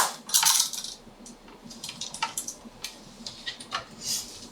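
Metal hand tools clicking and clinking against wire while a stripped electrical wire is worked into a loop. A loud sharp clack comes at the start, a cluster of clicks follows just after, then lighter scattered ticks.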